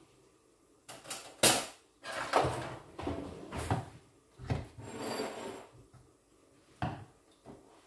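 Kitchenware being handled by hand: a sharp knock about a second and a half in, then a run of clattering and rustling, and two light clicks near the end.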